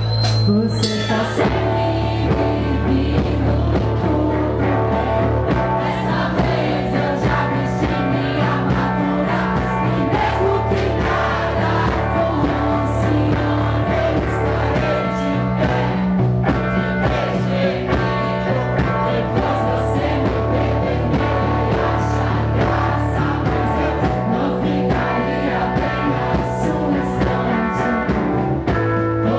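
Live rock band playing a song with electric guitar, bass and drums, and a woman singing into a microphone.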